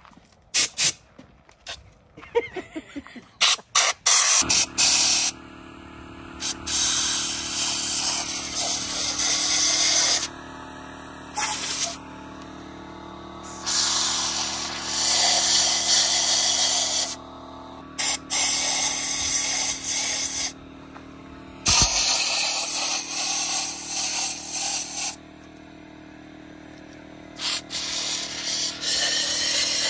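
Electric pancake air compressor kicks on about four seconds in and runs with a steady hum. Over it, a compressed-air blow gun hisses in repeated blasts a few seconds long, with short pauses between them. A few sharp clicks of handling come before the compressor starts.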